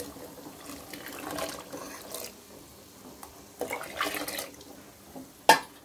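Thick coconut milk poured into a steel pot of cooked split mung dal, splashing and gurgling in spells. A single sharp knock near the end.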